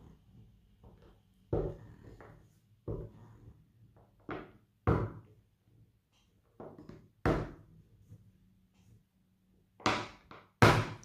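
Small plastic rolling pin rolling gumpaste out thin on a plastic board: a series of about eight short dull knocks, irregularly spaced a second or so apart, with the strokes of the pin.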